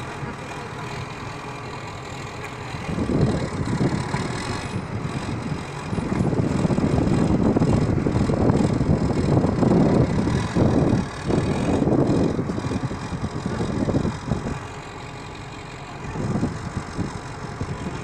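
Heavy machine engine running steadily, with a loud, uneven low rumble that swells about six seconds in and drops away sharply near fourteen seconds.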